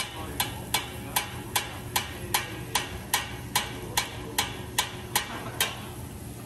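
Sharp metal-on-metal clacks in a steady beat, about two and a half a second, each ringing briefly, stopping about a second before the end: a teppanyaki chef tapping his utensils in rhythm during his show, over a low steady hum.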